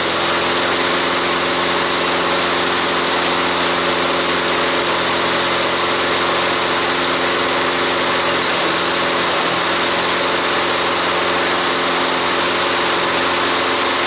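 Toro lawnmower's small engine running steadily at constant speed on a test run after repair.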